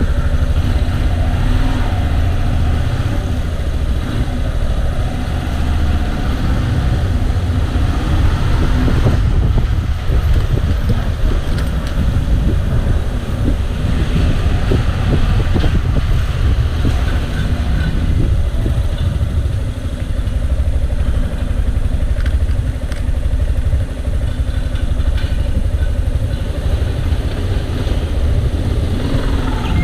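Yamaha XTZ 250's single-cylinder four-stroke engine running, with a heavy, steady low rumble.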